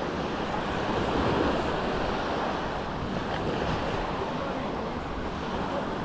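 Sea waves breaking and washing onto a beach, a steady surf noise that swells a little about a second in, with wind buffeting the microphone.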